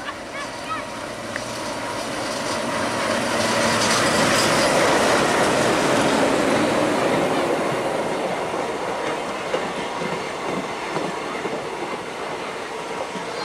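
Indian Railways WDM-class diesel locomotive passing close by at slow speed, its engine chugging and loudest about four to six seconds in. Its ICF passenger coaches then roll past with a clickety-clack of wheels over rail joints.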